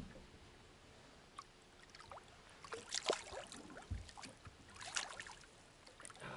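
Lake water splashing and sloshing at the side of a boat in short bursts as a hooked lake trout thrashes at the surface and is reached for by hand. There is a dull thump about four seconds in.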